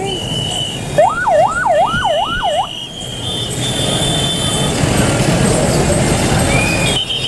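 A siren warbling rapidly, its pitch sweeping up and down about four times, starting about a second in. Under it is a steady din of street noise, with shrill steady tones coming and going.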